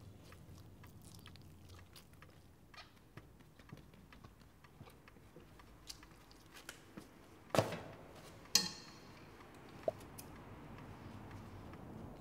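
Faint scattered clicks and rustles of small objects being handled, with two sharper knocks about seven and a half and eight and a half seconds in, the second followed by a brief high ringing.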